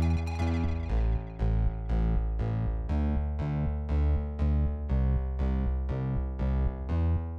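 Background music: a synthesizer or keyboard playing repeated, evenly spaced piano-like notes over a heavy bass line.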